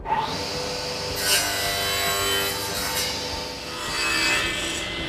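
10-inch table saw with an induction motor running, its blade cutting through wood in two stretches: from about a second in to three seconds, and again near the end.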